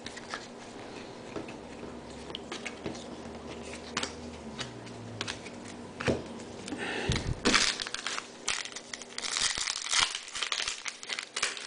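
Foil trading-card pack wrapper crinkling and tearing as a pack is opened, after a few seconds of light clicks and rustles of cards being handled; the crinkling gets denser over the last few seconds.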